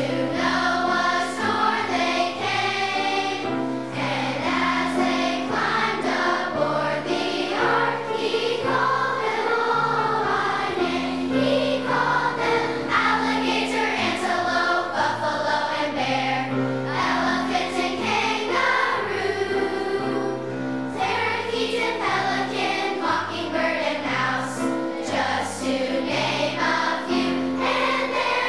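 A children's choir of elementary-school boys and girls singing a song together.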